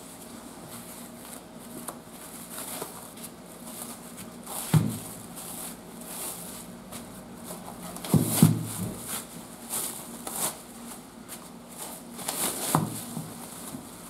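Plastic cling wrap crinkling and rustling as it is peeled off a paper-towel-wrapped fish, with a few dull knocks as the fish is handled on a plastic cutting board, the loudest about 5 s and 8 s in.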